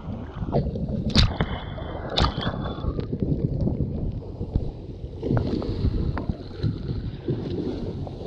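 Water rushing and splashing past the side of a moving motorboat as the camera dips into its spray and wake, with wind buffeting the microphone. Two sharp knocks come about one and two seconds in.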